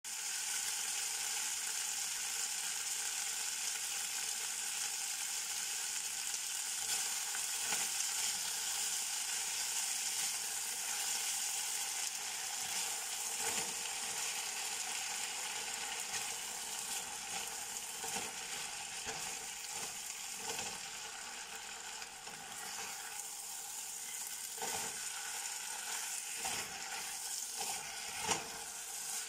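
Beef strips and vegetables sizzling steadily in a hot honeycomb-textured stainless fry pan, with a spatula stirring and scraping through them now and then. A sharper clack of the spatula against the pan comes near the end.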